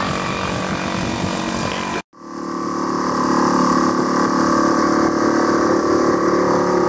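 A steady rushing noise, then after a cut about two seconds in, a small boat's outboard motor running steadily at an even pitch.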